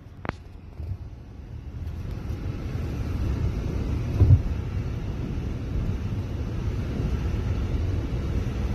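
Cabin noise of a car driving on a highway: a steady low rumble of road and engine noise that fades up over the first couple of seconds, with one louder thump about four seconds in.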